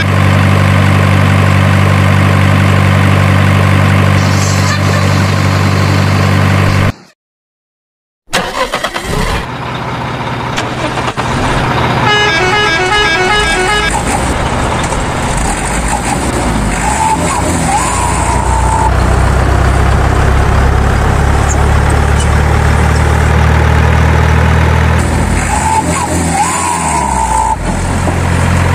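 Dubbed-in sound effect of a big truck's engine running with a steady deep hum, cut to silence for about a second around seven seconds in, then running on. A truck horn sounds in a quick repeating pattern about twelve seconds in.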